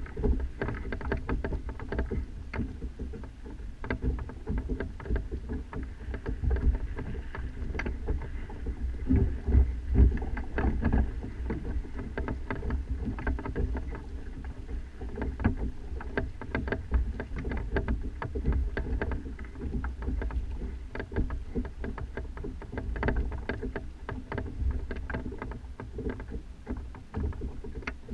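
Wind buffeting a GoPro mounted at the top of a sailing kayak's mast: a constant low rumble with frequent irregular knocks and rattles from the mast and rig.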